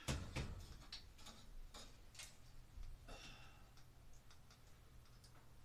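Faint scattered clicks and light taps of screws and a light fixture being handled overhead, with a louder knock right at the start and a low steady hum underneath.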